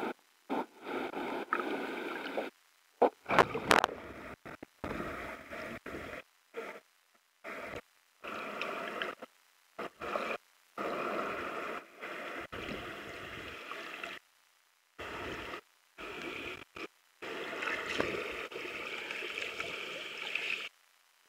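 Rushing, gurgling water at a waterfall pool, breaking off abruptly into silence many times and coming back in choppy stretches.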